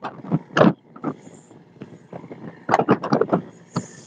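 Irregular gusts of rushing noise on the deck of a fishing boat under way at sea: wind buffeting the phone microphone mixed with the splash of water along the hull, over a faint steady background hum.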